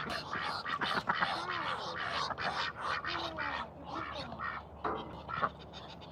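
Ducks quacking in a busy run of short calls that thins out and grows quieter about four seconds in.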